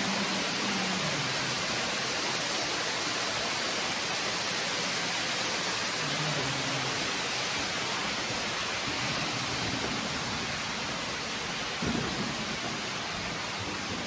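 Steady rushing hiss of water running through a limestone cave, with a single short knock about twelve seconds in.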